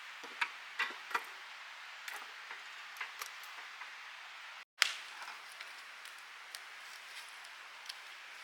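Wood campfire crackling: irregular sharp pops and snaps over a steady hiss, with a louder snap a little past halfway.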